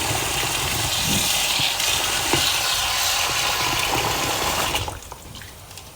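Kitchen tap running into a pot of rice and lentils as they are washed, a steady rushing hiss that shuts off suddenly about five seconds in, leaving faint trickles and small clicks.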